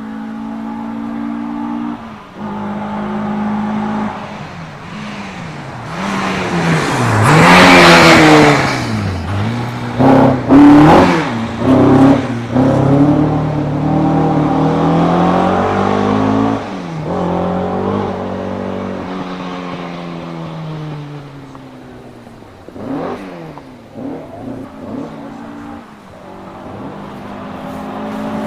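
Rally cars racing past, engines revving hard and dropping through gear changes, with pitch falling as they go by. The loudest pass comes about eight seconds in, and several more cars pass later.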